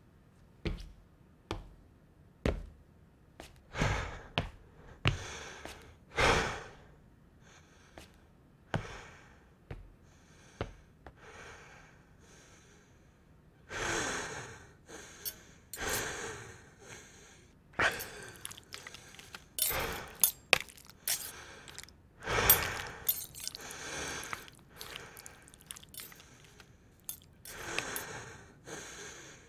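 A person eating from a plastic meal tray: sharp clicks and knocks early on, then breathy gasps and chewing in quick, separate bursts that crowd together in the second half.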